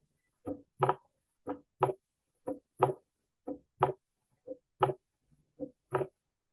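Heart sounds, a regular 'lub-dub' at about one beat a second: S1 then S2 a third of a second later, the second sound of each pair the louder.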